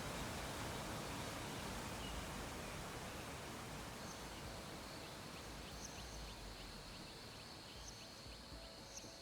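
Steady background hiss, slowly fading, with a thin high steady tone and faint short high chirps from about halfway through.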